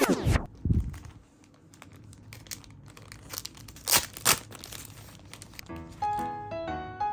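Album packaging crinkling and tearing as it is unwrapped by hand, with two sharp crackles about four seconds in. A falling swoosh opens it, and background music with a steady piano melody comes back near the end.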